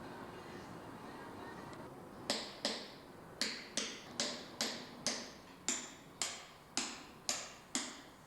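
Hand hammer driving a steel tool into sandstone blocks: about a dozen sharp, ringing blows, roughly two a second, starting about two seconds in.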